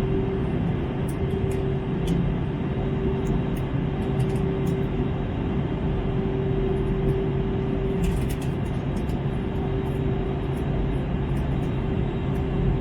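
Steady cabin noise inside an Airbus A321 in flight: the even roar of the engines and rushing air, with a steady hum running through it.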